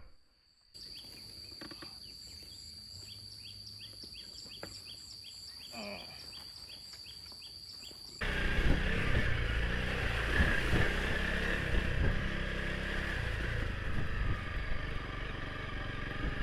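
A steady high insect whine with short chirps repeating at an even pace. About eight seconds in, it cuts abruptly to the much louder sound of a motorcycle on the move, engine and road noise together.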